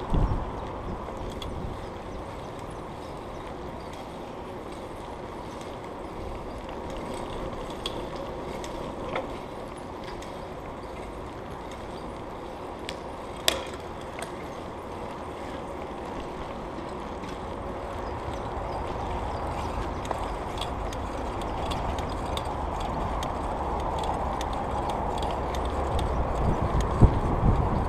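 Bicycle riding along a paved path: tyres rolling, with small clicks and rattles from the bike and one sharp knock about halfway through. A low wind rumble on the microphone grows louder over the second half.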